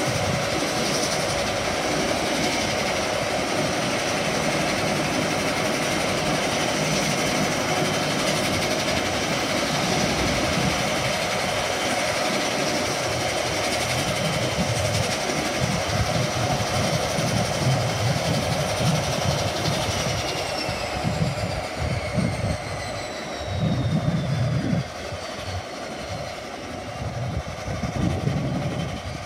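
De Havilland Canada Dash 8 turboprop engine running on the ground with its propeller turning, a steady loud drone and whine. About two-thirds of the way in the high whine falls in pitch as the engine spools down.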